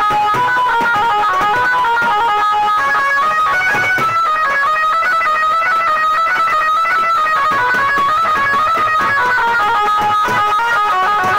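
Amplified Indian banjo (the keyed banjo of a local banjo band) playing a fast melody of quick, clipped plucked notes that step up and down and repeat.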